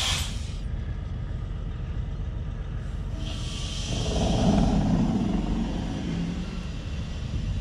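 Heavy truck engine idling steadily while compressed air hisses at the trailer's air brake line couplings as they are connected: a short hiss right at the start and a longer one from about three seconds in. A louder low rumble swells around four to five seconds.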